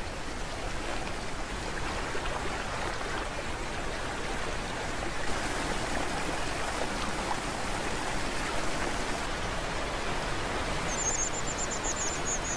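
River water rushing and bubbling over rocks in shallow rapids, a steady rush throughout. Near the end a bird gives a short, high, rapid trill, then a couple of single notes.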